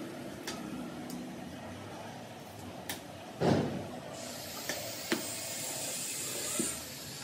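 Ceramic floor tiles being pressed and shifted by hand on a wet mortar bed: scattered light clicks of tile edges knocking together and a louder thump about halfway through, over a steady background noise, with a thin hiss in the second half.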